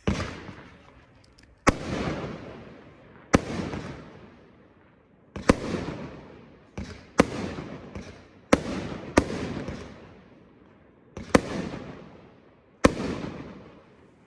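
A multi-shot firework cake (a 53-shot 'Emperor Dragon' cake) firing: about ten sharp bangs, one every second or two, each followed by a crackling tail that fades.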